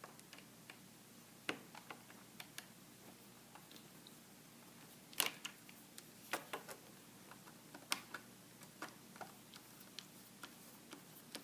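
Small Phillips screwdriver working the screws out of a laptop's screen bezel: sparse, faint clicks and taps of metal tip and screws, a few louder ticks about five and eight seconds in.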